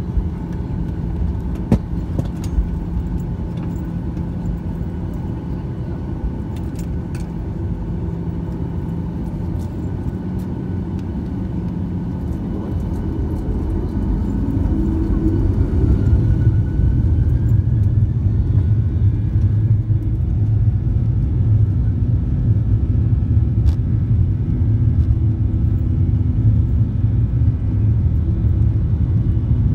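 Boeing 737 cabin noise while taxiing: a steady jet-engine rumble that grows louder and deeper about halfway through as the engines spool up, with a faint rising whine. A couple of short knocks near the start.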